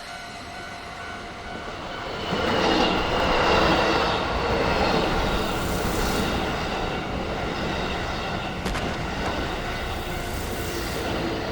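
A train passing close by at a railroad crossing: the rail noise swells in about two seconds in and stays loud, with rushes of high noise as it goes by. Steady high tones run underneath.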